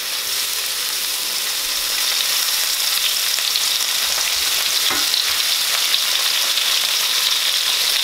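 Sliced mushrooms frying in olive oil in a frying pan: a steady sizzle, with a wooden spoon stirring them through.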